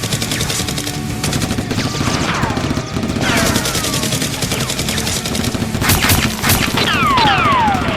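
Rapid automatic gunfire, a dense volley of sharp reports, with several falling whistles sweeping down in pitch midway and near the end.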